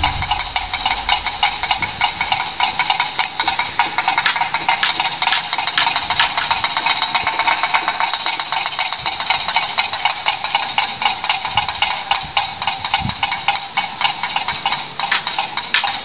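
A bird-scaring noise windmill turning in the wind, its clapper striking in a rapid, steady clacking of several knocks a second. The noise is there to drive sparrows and other birds off the rice.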